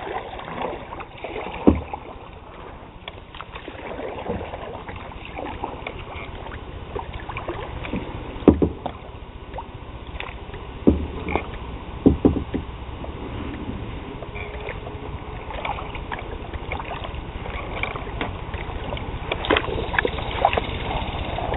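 Kayak paddling: paddle strokes in the water with dripping and sloshing, and a few scattered sharp knocks, the loudest about eight and a half and twelve seconds in.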